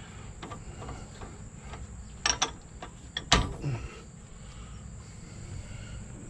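Steel hand tools clinking as they are fitted against the seized hub nut. There are a few sharp metal clinks a little after two seconds and the loudest knock at about three seconds, with light clicks of handling between them.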